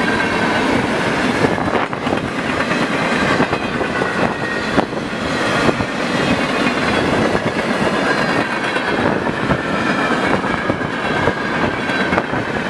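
Freight train cars rolling past: a steady loud rumble of steel wheels on rail, with occasional clicks at the rail joints and thin high ringing tones from the wheels.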